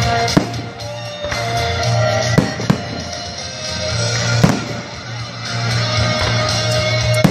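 Aerial firework shells bursting with about five sharp bangs spread over several seconds, over music with a steady bass line.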